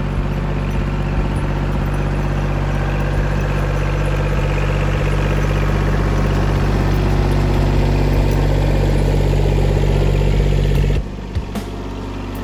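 Kubota L2501 tractor's three-cylinder diesel engine running steadily under a raised loader. Its sound drops abruptly to a quieter level near the end.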